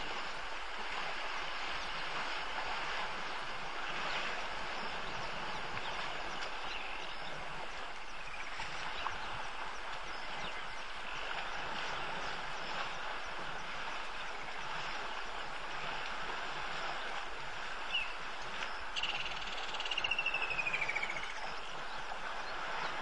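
Steady chorus of frogs, with a short falling whistle near the end.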